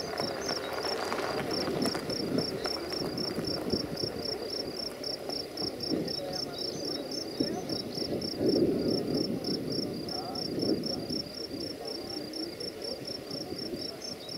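Level-crossing warning bell ringing in a rapid, even high-pitched pulse of about four strokes a second, over the chatter of people's voices.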